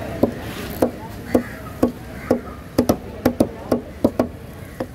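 Large curved knife chopping barracuda into chunks on a wooden chopping block: a run of about a dozen sharp chops, roughly two a second, some coming in quick pairs.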